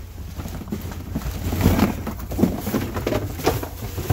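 Cardboard shoe boxes being shuffled, opened and knocked against each other, a run of irregular knocks and scrapes over a low steady rumble.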